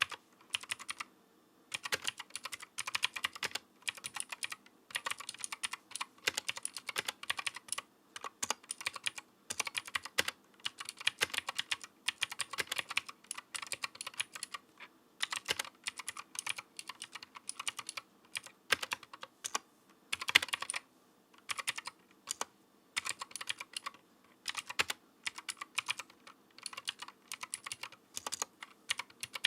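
Typing on a Paradox Gaming Ghost GH68 mechanical keyboard with clicky Gateron Green switches and PBT keycaps: rapid runs of crisp keystroke clicks in bursts of a second or two, broken by short pauses.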